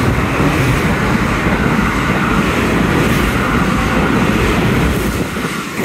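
JR West Haruka limited express running through a station at speed without stopping: a loud, steady rush of wheels on rail and air as the cars pass close by, easing off near the end as the last car goes past.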